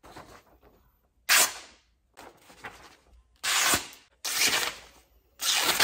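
Restored old knife's blade slicing a sheet of paper to test its sharpness: four short, papery rasps, one about a second in and three in quick succession near the end.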